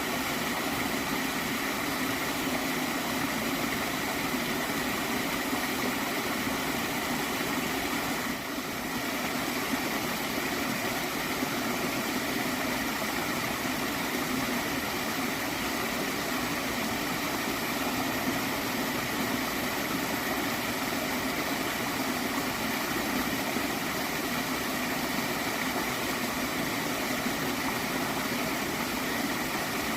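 Gently flowing stream of water gurgling steadily, with a brief dip in level about eight seconds in.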